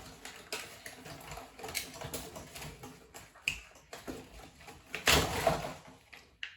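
Hands handling plastic toy packaging and small doll accessories: scattered clicks and crackles, with a louder rustle about five seconds in.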